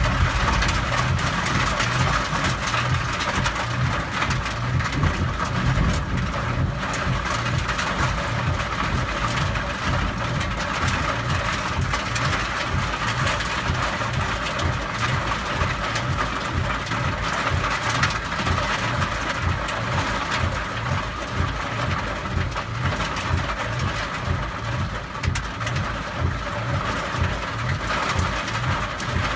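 Heavy downpour: a steady, loud hiss of rain, with a regular low thudding underneath, about three beats a second.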